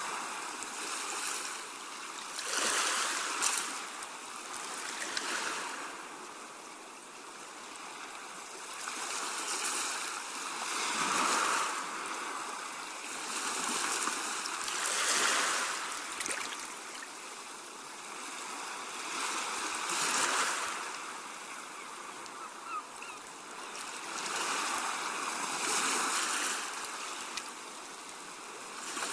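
Sea wash: waves washing up and draining back, a hissing rush that swells and fades in surges a few seconds apart.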